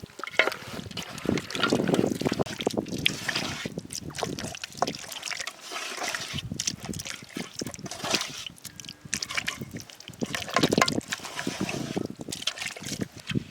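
Water sloshing and splashing in irregular bursts, with small clicks and knocks.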